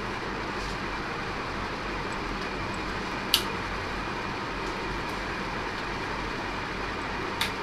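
Scissors snipping off the excess tails of two nylon cable ties: two short sharp snips about four seconds apart, over a steady background hiss.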